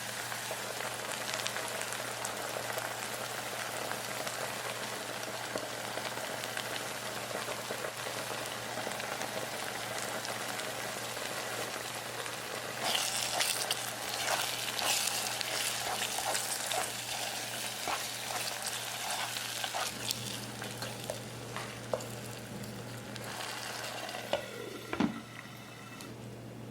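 Food frying in hot oil in a pan, a steady sizzle with crackling that grows louder and brighter about halfway through, then dies down near the end.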